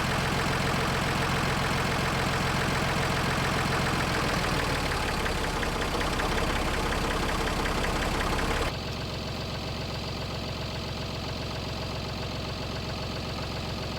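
An engine running steadily, its note shifting about four and a half seconds in. Near nine seconds the sound drops abruptly to a quieter, duller engine hum that carries on.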